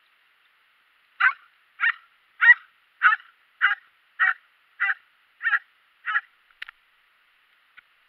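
Spanish water dog barking at play: nine barks in an even rhythm, a little under two a second.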